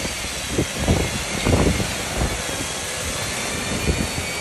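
Steady rushing noise of pouring rain and wind at sea, with uneven low rumbles of wind buffeting the microphone.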